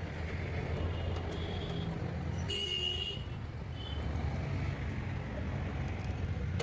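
Steady low rumble of road traffic, with a short vehicle horn toot about two and a half seconds in and fainter brief toots around it.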